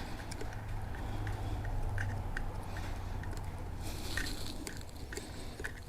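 Faint small clicks and scrapes of a valve core tool unscrewing the Schrader valve core from a tire's valve stem, over a steady low hum.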